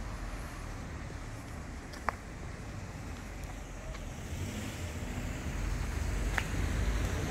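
Low steady rumble of outdoor street ambience, growing a little louder near the end, with two short sharp clicks, one about two seconds in and one about six seconds in.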